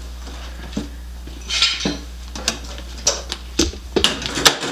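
Metal car window-frame pieces being handled and held against each other: a series of light metallic clanks and clicks with a short scrape, the knocks coming thickest near the end.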